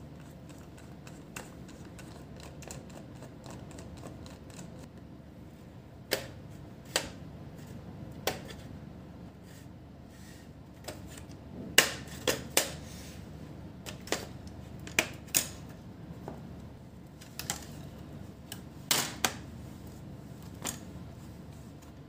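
Plastic snap-fit clips of a laptop's palmrest top case popping loose one after another as the case is pried open with a plastic opening tool. There are about a dozen sharp clicks, starting about six seconds in and coming thickest in the middle.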